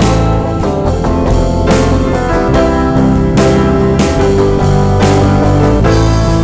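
Live rock band playing an instrumental passage without vocals: electric guitar, bass guitar, drum kit and piano, with regular drum and cymbal hits.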